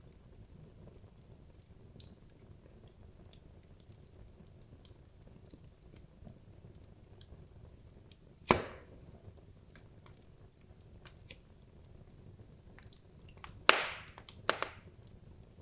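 Wood logs burning in a fireplace: a low steady fire sound with scattered small ticks, one loud crack about halfway through and a quick cluster of sharper pops near the end.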